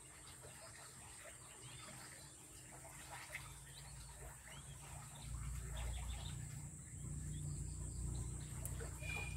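Newly hatched king quail chicks peeping faintly in short high chirps, with a low rumble that comes in louder about halfway through.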